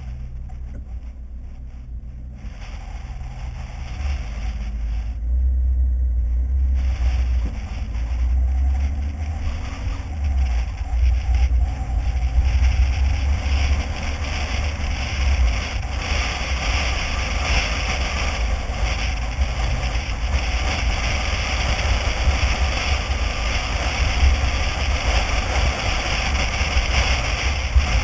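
A car driving away and gathering speed: a low engine and wind rumble, growing louder over the first several seconds, with a hiss of road and wind noise that builds from about halfway through.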